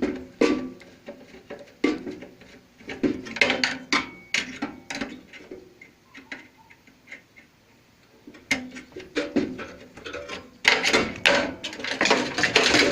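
Irregular knocks and clanks of metal parts and tools being handled while an old microwave oven is taken apart, with a quieter spell in the middle.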